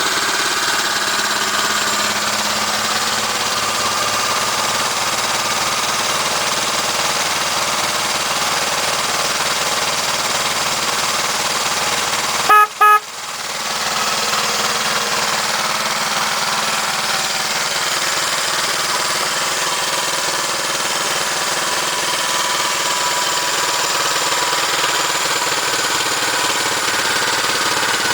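1971 Honda CL350 K3's parallel-twin engine running steadily just after start-up on its restoration. About halfway through, the bike's horn gives two short beeps.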